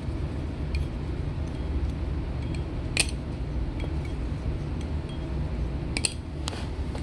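WB Concepts Giga tang-pin balisong being flipped by hand: light metallic clicks as the handles swing and strike the tang pins, one sharp click about three seconds in and two more near the end, over a steady low hum.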